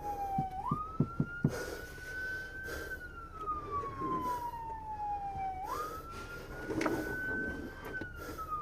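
Police car siren on a slow wail: its pitch jumps up, climbs slowly, then slides slowly down, twice over in a cycle of about five seconds. A few sharp clicks come about a second in.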